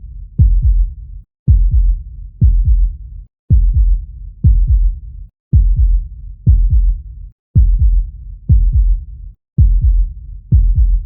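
Heartbeat sound: a low double thump (lub-dub) about once a second, repeating evenly.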